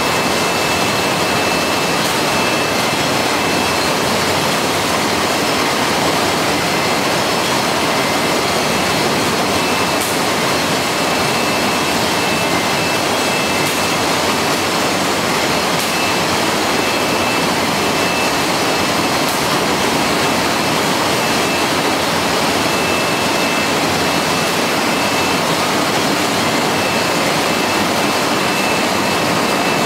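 Chicken feet peeling machine running: a stainless-steel rotating drum and spiral trough with water flowing, making a loud, steady rushing noise with a thin high whine.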